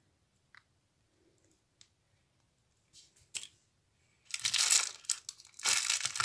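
A few faint clicks, then from about four seconds in a loud rustling and crinkling of plastic as small fishing tackle is picked out of a compartmented plastic tackle box.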